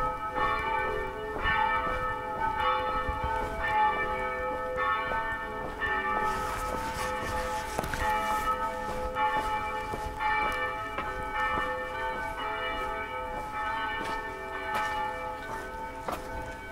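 Church bells pealing: repeated strikes with long, overlapping ringing tones. A brief rush of hiss about six seconds in.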